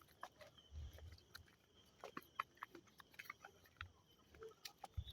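Near silence: a few faint, scattered clicks and soft low thumps over a faint steady high tone.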